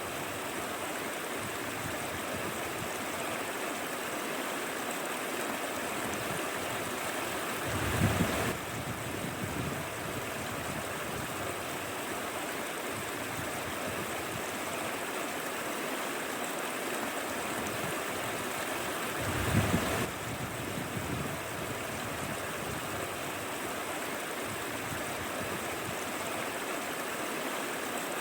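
Mountain stream flowing steadily, a constant rushing and gurgling of water. Twice, about a third and two-thirds of the way in, a brief low rumble of wind buffets the microphone.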